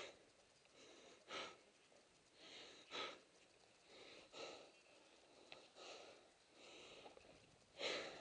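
A person breathing hard, faint and close, with a breath about every second and a half: winded after exertion.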